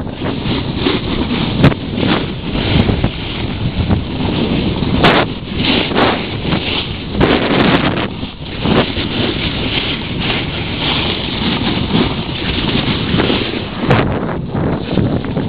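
Heavy wind buffeting the camera's microphone during a fast run down a snowy slope, gusting up and down, mixed with the hiss of sliding over snow and a few bumps.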